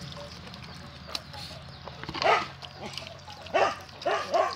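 Dog barking in short, high yelps: one about two seconds in, then three more close together near the end. Between them come faint clicks of a dog eating rice from a metal dish.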